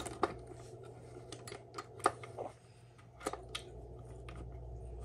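Small metal clicks and taps of steel manual-transmission parts, shift forks and shaft, knocking against each other and the case as they are worked into place by hand, a few scattered clicks with the sharpest about two seconds in, over a low steady hum.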